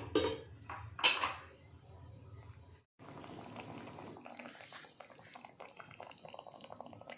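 A metal lid and spatula clanking on a kadai twice in the first second or so, then a curry simmering in the open kadai, faint steady bubbling and crackling.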